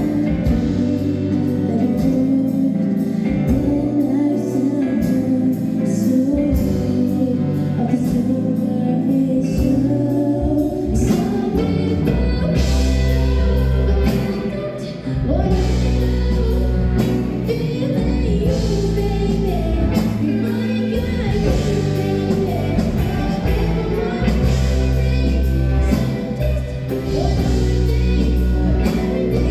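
A song: singing over band accompaniment with a steady drum beat and a deep bass line, in a gospel style.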